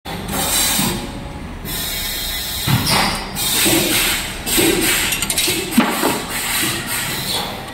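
CNC wire-bending machine working, feeding and bending mild-steel wire for fan-guard ribs. Irregular machine noise with hissing and several knocks, and a sharp click about six seconds in.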